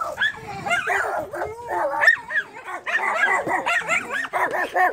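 A dog giving many short cries in quick succession, each rising and falling in pitch.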